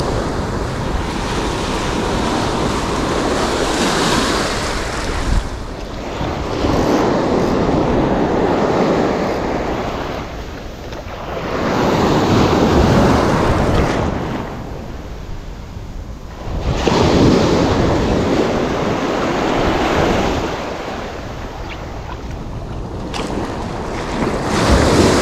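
Surf breaking and washing up a beach close by, rising and falling in repeated swells about every four to five seconds.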